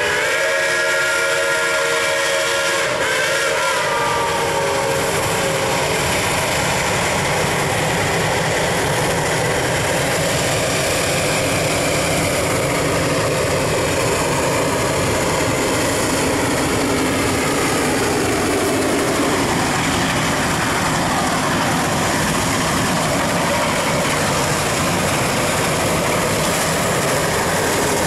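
Shay geared steam locomotives working a train: a steam whistle blows for about the first three to four seconds, then the steady exhaust and running noise of the engines as they come up and pass.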